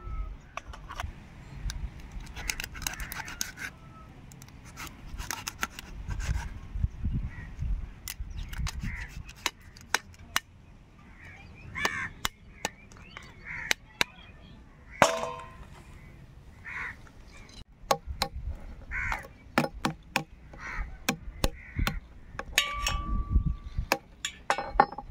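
Sharp, irregular clicks and knocks of large crabs being cut and cracked: a knife working through the shells and a metal wrench tapping a claw against a stone slab.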